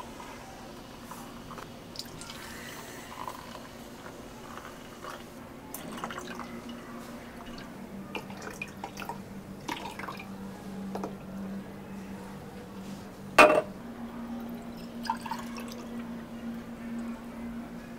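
Small clinks, taps and pouring or dripping liquid from drink preparation at a cafe counter, with one sharp clack about thirteen seconds in. A low steady machine hum runs underneath.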